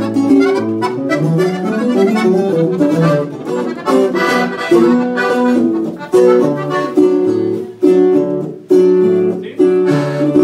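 Button accordion and bajo sexto playing a norteño tune together live, with the accordion's reedy notes over the strummed twelve-string bajo.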